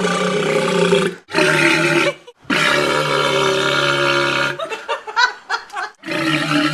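A walrus burping: a run of long, deep burp-like calls, one after another with short breaks, and a few shorter choppy ones about two-thirds of the way through.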